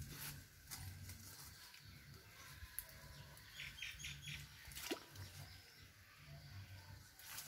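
Faint scrapes and knocks of a small hoe chopping into wet mud. A quick run of four short bird chirps comes a little past halfway.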